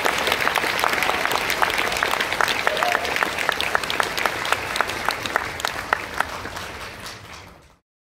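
Large audience applauding, the clapping thinning out and fading over the last few seconds, then cutting off to silence just before the end.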